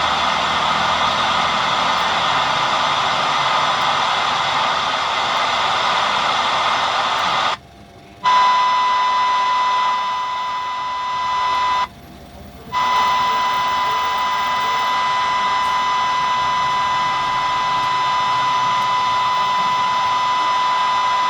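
Steady electronic hiss, with a steady pure high tone coming in about eight seconds in. The sound cuts out briefly twice.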